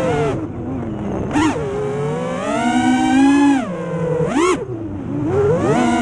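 FPV quadcopter's electric motors and propellers whining, the pitch swinging up and down with the throttle, with two quick full-throttle punches, about a second and a half in and again near four and a half seconds.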